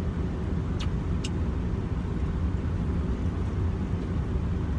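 Steady low rumble of a moving vehicle heard from inside the cabin, with two light clicks about a second in.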